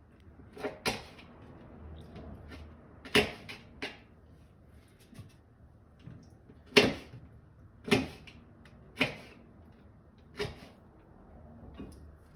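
Irregular sharp knocks and clatters of kitchenware being handled and set down, about nine in all, the loudest about seven seconds in.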